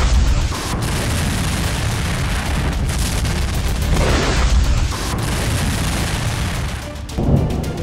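Explosions: a continuous deep rumble with heavy booms at the start, about four seconds in, and again near the end.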